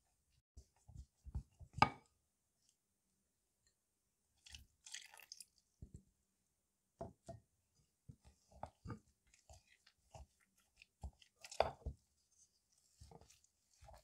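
Wooden spoon stirring thick chocolate cookie dough in a glass bowl: irregular scrapes and light knocks of the spoon against the glass, mixed with the moist crunch of the dough, with a short pause about three seconds in.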